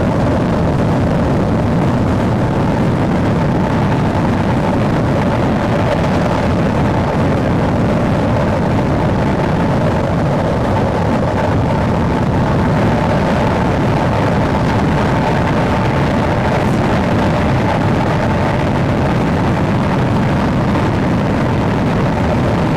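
SNCB AM80 electric multiple unit running at steady speed: an even rumble of the traction motors and running gear with a faint, steady motor whine.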